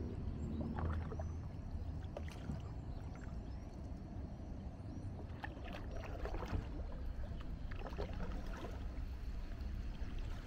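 Kayak paddle dipping into calm river water, with irregular small splashes and drips from the blades, over a low steady rumble.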